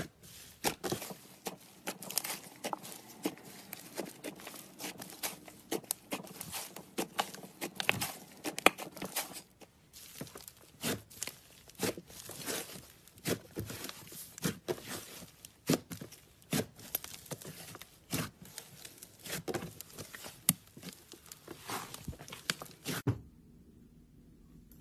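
White fluffy slime being pressed and kneaded by hand, giving off many quick irregular crackles and snaps as the air pockets in it pop and the surface tears. The crackling stops about a second before the end, leaving only faint hum.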